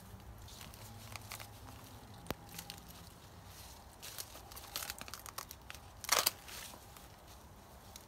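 Corn leaves and husks rustling and crackling while ears are cut from the stalks with hand pruning shears, with a loud crunch about six seconds in.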